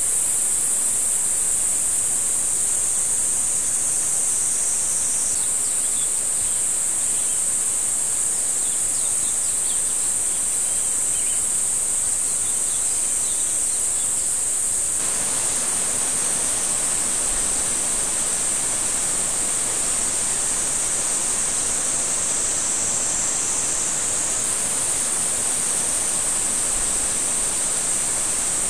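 Cicadas in a steady, high, unbroken drone, over an even hiss that gets louder about halfway through.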